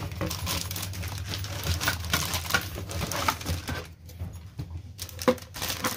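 Clear plastic wrapping bag rustling and crinkling as a mixer grinder's juicer jar is handled and pulled out of a cardboard box, dense for about four seconds and then dying down to a few light rustles.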